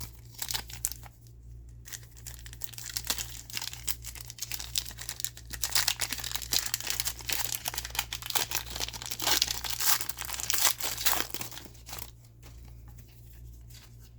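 Wrapper of a football trading-card pack being torn open and crinkled, a dense crackle that is loudest from about six to eleven seconds in and dies down near the end.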